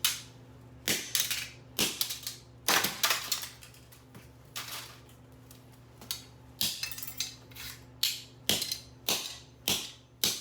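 A vintage Pass & Seymour light switch being struck hard over and over, about a dozen sharp cracks at an uneven pace with a short pause midway. The switch is holding up well, its metal parts surviving the blows.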